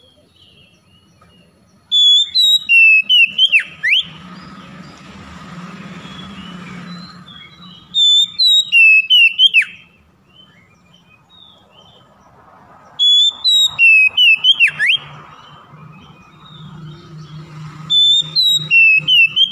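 Oriental magpie-robin (kacer) singing: loud phrases of clear whistled notes with sharp downward-sweeping slurs, four bursts about every five seconds with short pauses between.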